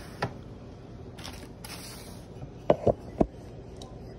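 Handling noise from a phone being carried and set in place: a knock just after the start, a short rustle about a second and a half in, then three sharp knocks in quick succession about three seconds in.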